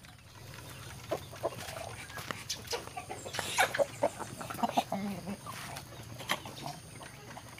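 A chicken clucking in short, scattered calls, mixed with clicks, loudest around the middle.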